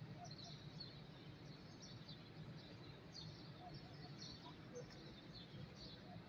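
Near silence: a faint steady low hum, with faint high chirping from small birds coming and going.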